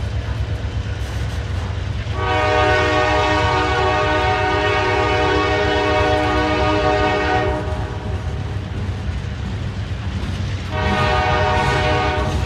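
Norfolk Southern freight locomotive horn sounding several tones at once: a long blast of about five seconds starting about two seconds in, and a second blast near the end. Under it the freight cars rumble steadily as they roll past on the rails.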